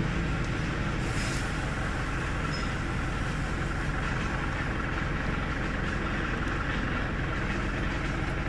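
Steady drone of running workshop machinery, a low hum with an even hiss, with a brief high clink about a second in.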